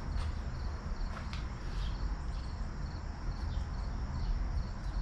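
Crickets chirping in a steady repeating high pulse over a low, steady rumble, with a few faint clicks.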